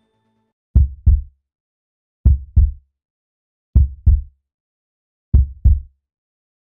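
Heartbeat sound effect: four double thumps, lub-dub, about one and a half seconds apart, deep and quickly fading, with silence between them.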